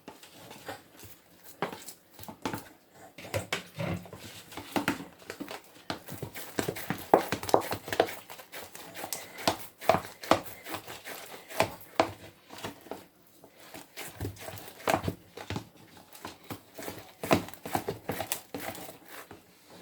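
Hot eba being turned and mashed in a bowl: a long run of irregular knocks and slaps of the utensil against the dough and the bowl.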